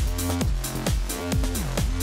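Electronic background music with a steady beat of about four strokes a second and repeating synth bass notes that slide down in pitch.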